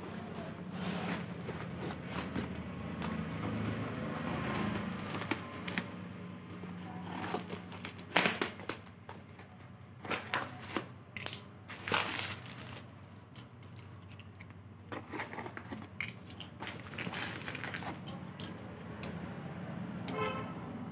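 Scissors cutting through the clear plastic wrap and packing tape of a parcel, with irregular snips and the plastic crinkling and rustling.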